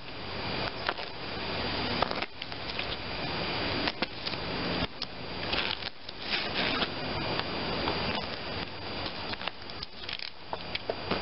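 Utility knife cutting through foam seat padding in repeated rasping strokes, with scattered clicks and crackles as the blade tears through.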